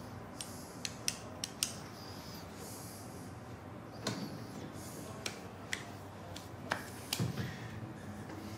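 Scattered sharp clicks and light knocks of small metal missile parts being handled and fitted together on a table, irregular, bunched at the start and again from about four seconds in.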